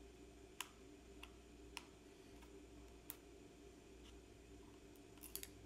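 Faint clicks of a charging cable's connector and a plastic power bank being handled: four single sharp ticks spread through the first half, then a quick cluster of clicks near the end, over a low steady hum.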